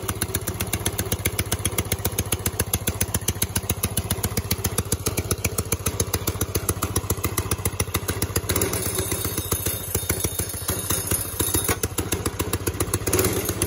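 Small single-cylinder go-kart engine running steadily at a low idle through an FMF muffler on a straight pipe: a rapid, even chug of exhaust pulses.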